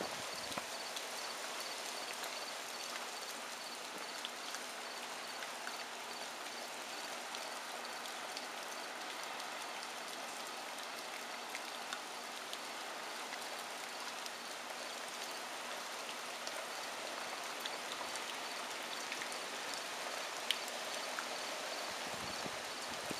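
Heavy hurricane rain hissing steadily, with scattered sharp drop ticks.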